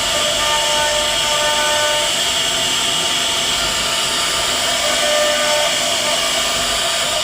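CNC router spindle running as it cuts wood: a steady, high hiss with faint wavering tones under it.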